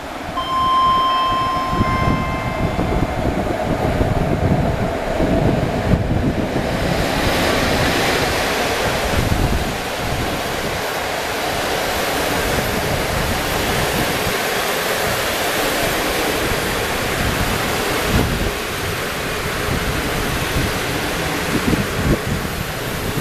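EP07 electric locomotive sounding a short two-tone horn as it comes in, then the locomotive and its TLK passenger coaches running past with a loud, steady rush of wheels on rails.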